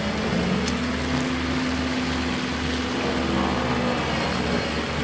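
An engine running steadily at a constant speed, with a broad rushing noise over its low hum.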